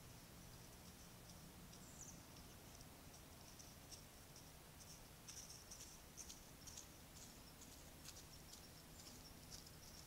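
Near silence: faint outdoor background hiss with scattered, faint high-pitched ticks and chirps, thickest around the middle.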